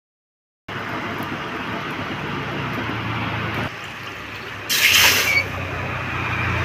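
Steady noisy background with a low hum, and a brief loud hiss about five seconds in.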